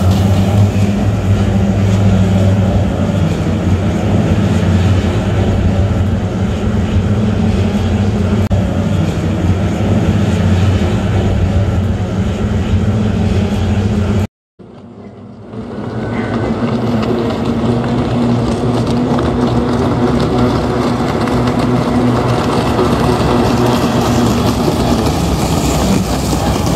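Boat-racing hydroplanes' two-stroke outboard engines running at speed: a loud, steady drone. It cuts off abruptly about halfway through, returns softly a second later and builds back to a steady drone.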